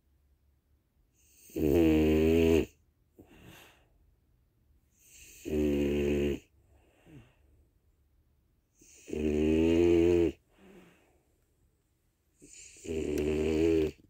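French bulldog snoring in its sleep: four loud snores, each about a second long, coming roughly every three and a half seconds, with faint short breaths between them.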